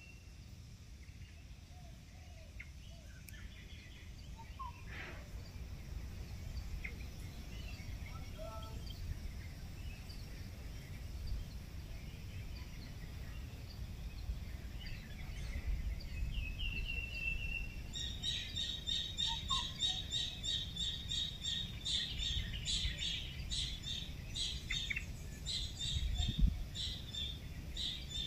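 Outdoor morning ambience of birds calling: scattered short chirps and a brief trill, then, past the middle, one bird repeating a rapid series of high notes, about three or four a second. Underneath is a steady low background noise.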